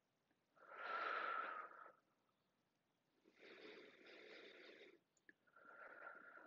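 A woman breathing slowly and audibly, close to the microphone: a louder breath about a second in, then two softer breaths.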